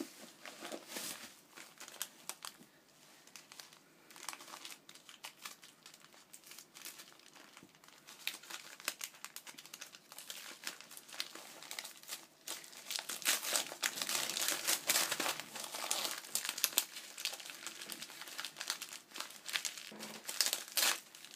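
Packaging being crinkled and rustled by hand as items are unwrapped from a parcel, an irregular stream of crackles that grows louder and busier about two-thirds of the way through.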